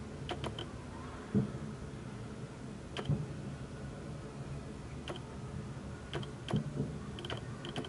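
Aerial fireworks shells bursting: several sharp cracks and dull booms at irregular intervals, the loudest boom about a second and a half in, over a steady low background noise.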